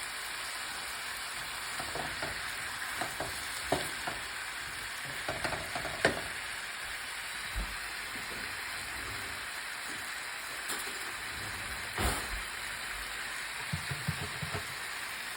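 Curry ingredients sizzling in oil in a pot as they are sautéed, with a spoon knocking and scraping against the pot at intervals as they are stirred.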